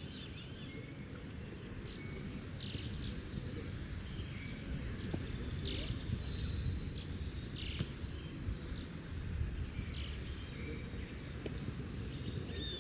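Steady low outdoor rumble of background noise, with small birds chirping again and again in short high notes.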